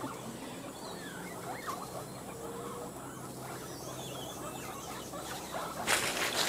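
Faint squeaks and chirps of small live prey animals, over a low steady hum; a louder rustling noise starts near the end.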